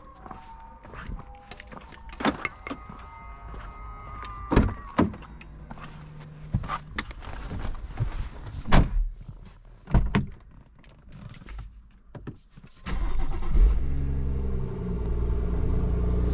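Knocks and clicks of someone settling into the car. About 13 s in, the BMW M140i's 3.0-litre turbocharged straight-six starts from cold, flares up and settles into a steady, rumbling fast idle.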